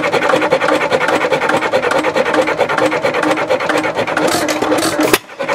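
Steady scraping whir of a Stewart-Warner handheld tachometer's tip pressed into the spinning flywheel hub of an Empire hit-and-miss engine, with the flywheel turning at about 275 to 300 rpm. The sound drops out briefly near the end.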